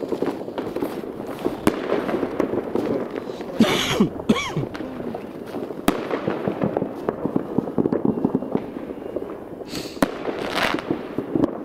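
Many fireworks going off: a continuous crackle of pops and bangs, with two louder bursts about four and ten seconds in.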